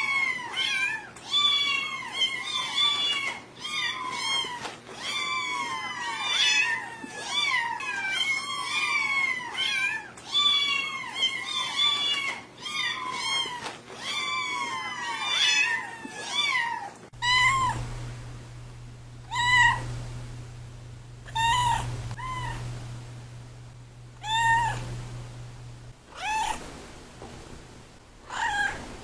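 Domestic cats meowing: for the first two-thirds, many meows overlap one another without pause. Then, after an abrupt change, separate meows come every second or two over a low steady hum, which stops near the end.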